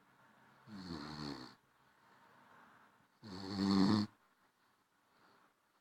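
Basenji puppy snoring in its sleep: two snores, each under a second long and about two and a half seconds apart, with a softer breath between them.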